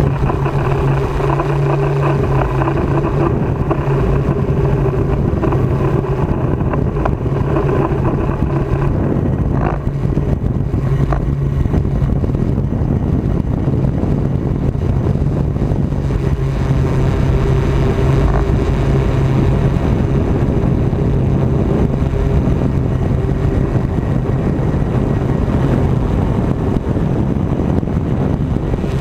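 Multirotor drone's motors and propellers humming steadily at a near-constant pitch, with a little wind rush.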